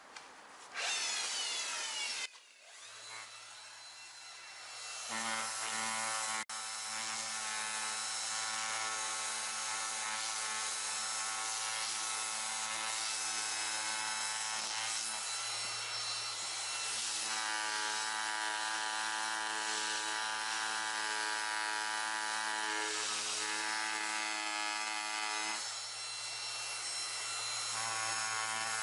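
Angle grinder with a sanding disc running steadily while it grinds paint off a plastic car bumper: a constant motor hum with the scraping of the abrasive over it. It starts about three seconds in, settles into a steady pitch a couple of seconds later, and eases briefly near the end.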